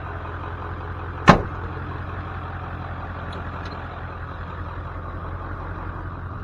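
A vehicle engine running steadily with a low hum. About a second in there is a single sharp, loud bang.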